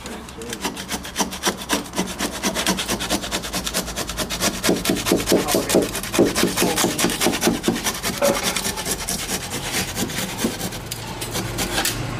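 Hand saw cutting back and forth down a joint between oak timbers in rapid, even strokes, easing the joint to an even gap so it can be tightened up. The sawing stops near the end.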